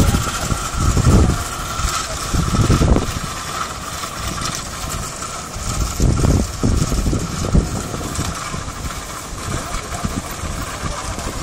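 Wind buffeting the microphone in uneven low gusts over the steady rush of sea surf breaking on rocks.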